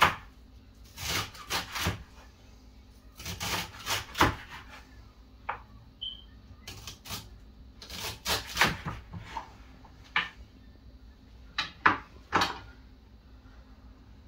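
Kitchen knife chopping celery on a wooden cutting board: irregular runs of sharp knocks with short pauses between them.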